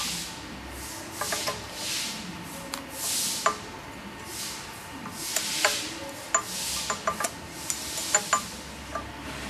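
Repeated hand rubbing or rasping strokes on a workpiece, roughly one a second, with light sharp clicks and taps between them.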